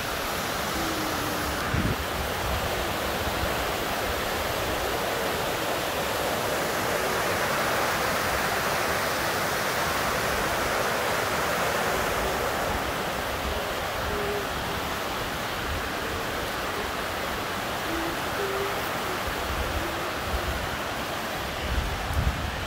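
Stream rushing over rocks in a steady rush that swells in the middle. A few short, low, level tones sound over it, and there are a few low bumps near the end.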